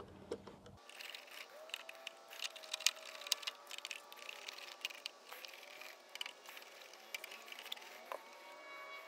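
Faint, irregular small clicks and ticks of a hand screwdriver backing screws out of a car amplifier's metal cover plate.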